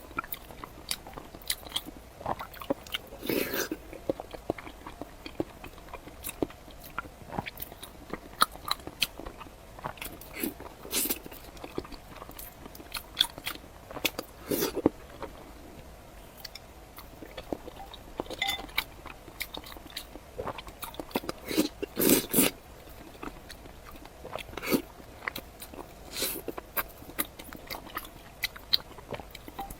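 A person biting and chewing food close to the microphone: irregular crunches and mouth clicks, with heavier bites about three and a half seconds in and again at about twenty-two seconds.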